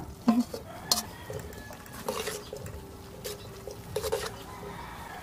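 Shredded young coconut being tipped into a stainless steel colander of canned fruit and stirred with a metal spoon: about five sharp clinks and scrapes of metal against the colander.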